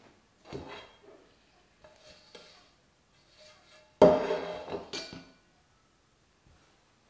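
A few soft knocks of a wooden rolling pin and pastry being handled on a wooden table, then about four seconds in a fluted metal tart pan clatters down loudly and rings briefly.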